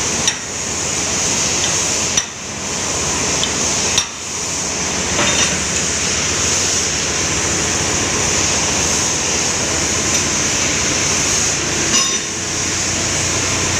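A handful of short, sharp metal knocks and clinks, a second or two apart, from work on a marine fuel injector held in a vise, over a loud steady machinery noise with a strong hiss.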